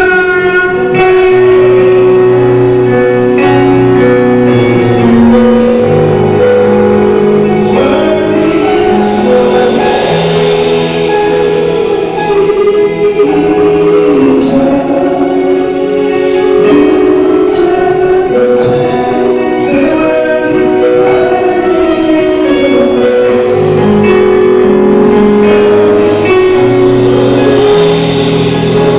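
Gospel music: singing voices over instrumental accompaniment, playing steadily throughout.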